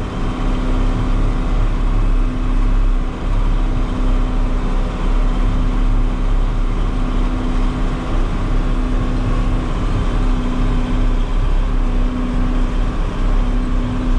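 Farm tractor's diesel engine running steadily at road speed, heard from inside the cab, with a constant hum over a low rumble and road noise.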